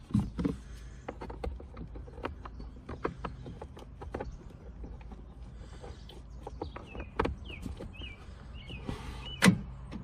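Plastic wiring-harness connectors being handled and plugged in inside an open car door: scattered small clicks and rustles. Near the end comes one loud clunk as the power door locks fire once the master switch is connected.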